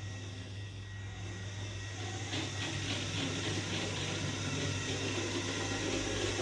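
Radio-controlled toy car running, its small electric motor and drivetrain whirring with a dense rattling knock from the wheels and body that gets louder about two seconds in. The owner puts the knock down to the wheels' toe-in or toe-out making them turn unevenly.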